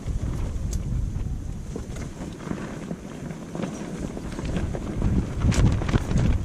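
Wind buffeting the microphone in gusts, a rumbling noise that swells about five seconds in, with a few sharp clicks scattered through it.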